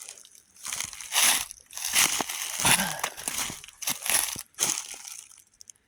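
Footsteps crunching through leaf litter on a woodland trail: about five steps, roughly a second apart, fading out near the end.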